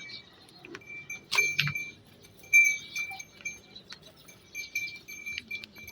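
Small metal bells jingling and clinking: a few sharp clinks, with a thin high ring in short stretches between them.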